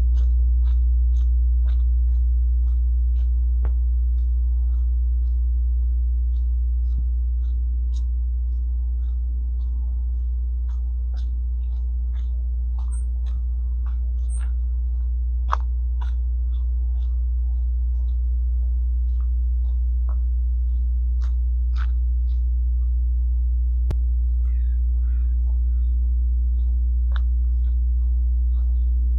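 Steady low electrical hum from overhead high-voltage power lines, a deep drone with higher steady tones above it. Light footsteps tick along the trail under it about once or twice a second.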